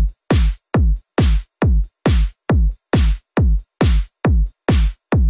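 Electronic dance music with a steady, heavy drum-machine beat, about two beats a second.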